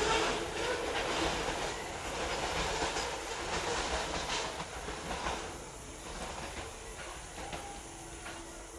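Open-top coal wagons of a long freight train rolling past, their wheels clacking over the rail joints. The sound fades from about halfway through as the last wagons pass.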